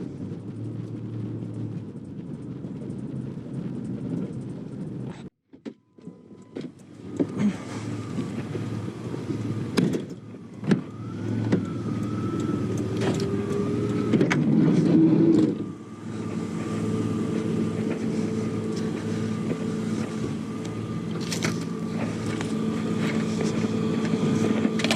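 Minivan engine and road noise running steadily, then a short cut-out. After it come several knocks and clunks, then a steady engine hum with a thin high whine.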